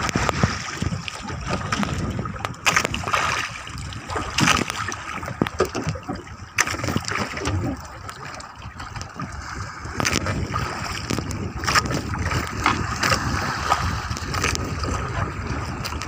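Sea water splashing and sloshing around a small fishing boat, with scattered sharp knocks and clicks.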